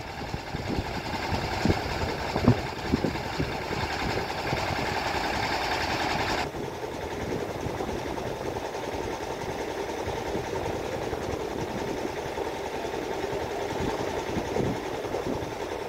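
Engine of a rail-mounted inspection vehicle running steadily on the bridge track, with a few light knocks. A hissing layer over it cuts off suddenly about six seconds in.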